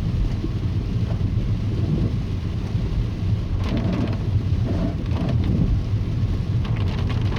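Car pushing through deep floodwater on a road: a steady low rumble of water surging against the body and underside, with heavier splashes about three and a half seconds in and again near the end.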